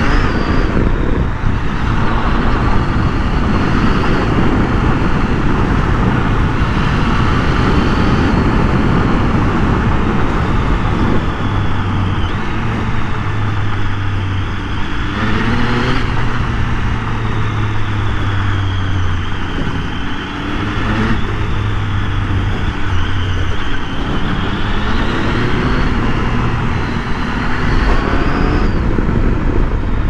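Triumph Tiger 800 motorcycle's three-cylinder engine running under way, with wind noise over the camera's microphone. The engine pitch rises and falls several times with throttle and gear changes.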